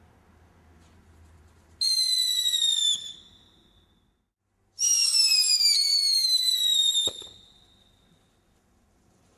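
Whistles from firework Catherine wheels: a high-pitched whistle gliding slightly downward for about a second, then after a short silence a longer one of about two seconds that ends in a sharp click.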